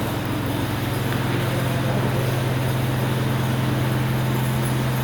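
Steady low hum over a continuous rushing noise, unchanging throughout.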